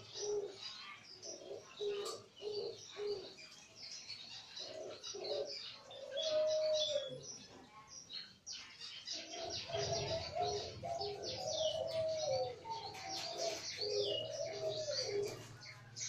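Several caged doves, ringneck-type puter doves and spotted doves, cooing over and over in arching, rising-then-falling notes, with small birds chirping high-pitched all along. A steady low hum comes in about halfway through.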